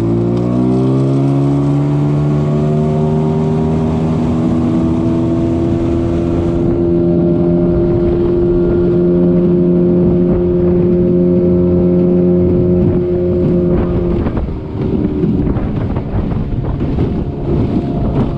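Tiller outboard motor on an aluminium jon boat throttling up to speed, its pitch rising over the first few seconds, then running steadily at speed. About fourteen seconds in the engine note drops back and wind and choppy water noise take over.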